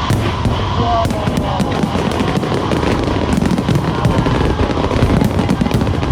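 Fireworks display going off: a dense, unbroken stream of rapid bangs and crackles over deep booms.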